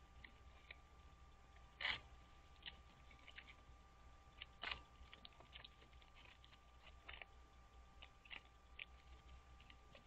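Sticks of a bald eagle nest clicking and snapping as the eagles shift on it: scattered faint clicks, with two sharper cracks about two seconds in and near the middle.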